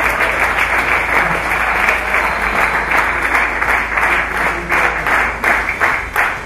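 Audience applauding: dense clapping from many hands, thinning to fewer, separate claps near the end.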